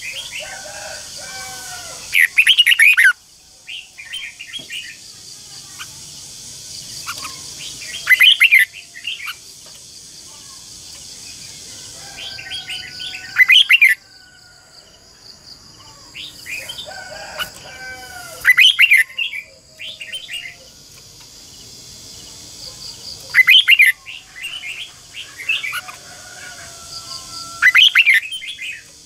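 Caged red-whiskered bulbul singing: loud, fast, twisting warbled phrases about every five seconds, with softer warbles in between.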